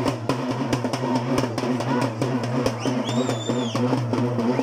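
Loud procession music driven by a fast, steady drum beat. About three seconds in, a shrill whistle sounds for under a second.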